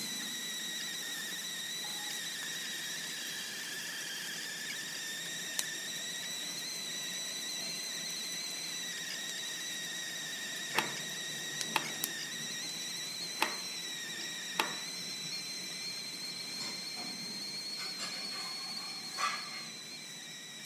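A steady, high whistling tone held at one pitch, wavering slightly, with several sharp clicks in the middle and a soft knock near the end.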